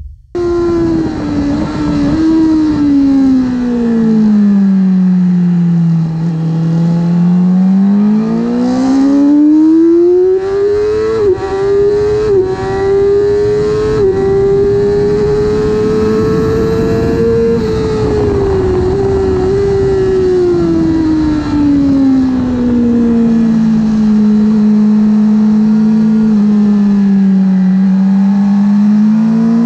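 Yamaha R6 inline-four sport-bike engine heard from onboard: revs drop under braking, then climb through quick upshifts, each a brief dip in pitch, to a long high-revving run, and fall away again before picking up near the end. Wind rush runs underneath.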